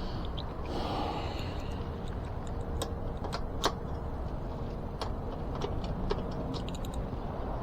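Irregular small clicks and taps of hand tools and bike parts being handled during a wheel removal, with one sharper click about three and a half seconds in, over a steady low hum.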